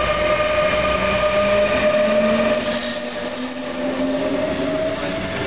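Electric passenger train of a locomotive and double-deck coaches passing close by, rolling over the rails with a steady whine; about halfway through the low rumble eases and a high, thin squeal joins in.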